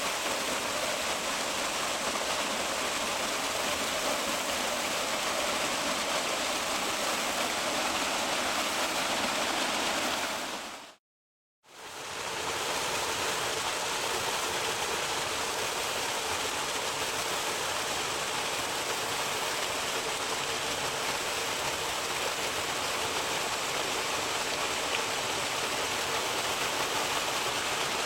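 Waterfall rushing with a steady, even roar of falling water. About 11 seconds in it fades out to silence for under a second, then comes back the same.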